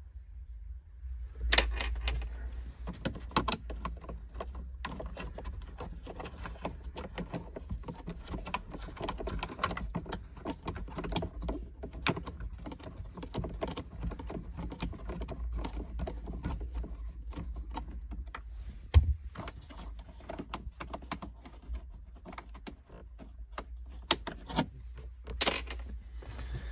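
Screwdriver with a Torx T20 bit undoing a screw inside a van's dashboard radio opening: a long run of small metallic clicks and rattles against plastic, with one sharper knock about two-thirds of the way through.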